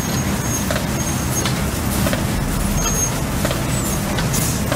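Truck-mounted leaf vacuum running steadily: a continuous low machine drone with the rush of air through its wide suction hose as it draws leaves off the curb.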